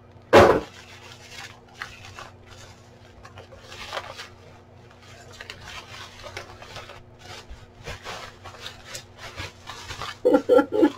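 Plastic bubble wrap rustling and crinkling in irregular bursts as it is pulled out of a cardboard mailer and handled, after one loud sharp noise just after the start.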